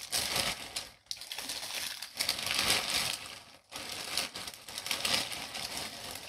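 Thin clear plastic bag crinkling and rustling as it is handled and pulled open, in three stretches with brief pauses about one second and nearly four seconds in.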